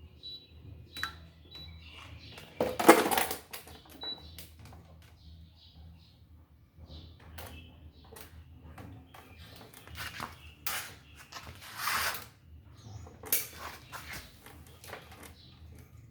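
Intermittent clicks, knocks and clatters of an electric fan's parts and tools being handled during repair. The loudest clatter comes about three seconds in, and more follow around eleven to thirteen seconds.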